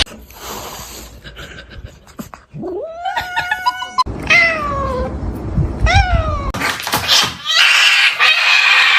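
A cat meowing several times: a long meow that rises and then holds about three seconds in, a falling one just after four seconds, and a short one near six seconds. A louder, rougher stretch of sound fills the last two seconds or so.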